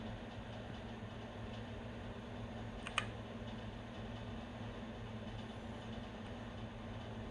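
A single sharp key click from a Keychron K6 mechanical keyboard about three seconds in, over a steady low hum.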